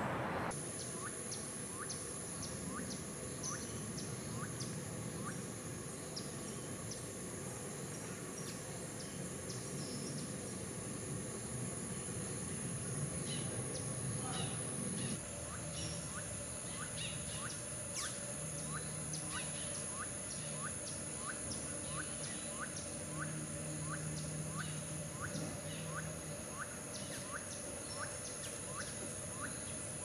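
Tropical forest ambience: a steady high-pitched insect drone with a short chirping call repeated about twice a second. A low background rumble drops away about halfway through.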